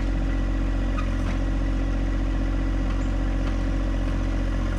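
John Deere 1025R compact tractor's three-cylinder diesel engine running steadily while its 260B backhoe digs into hard garden soil.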